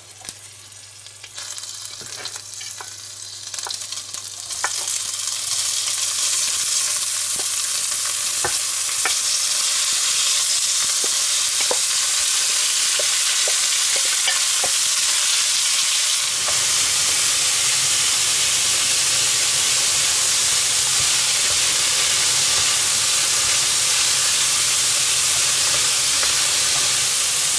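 Diced pork and bacon frying in a hot cast-iron Dutch oven. It starts quietly with a few clicks, turns to a loud, steady sizzle about four to five seconds in as the meat goes in, and scattered clicks follow from the wooden spatula stirring the pieces.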